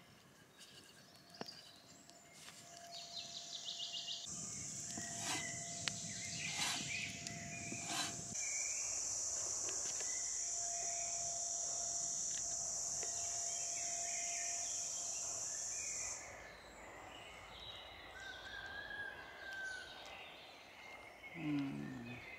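Outdoor woodland ambience. A steady high-pitched hiss or buzz builds in early, grows louder, then cuts off abruptly about three-quarters of the way through. Faint bird chirps follow, and a brief low sound comes near the end.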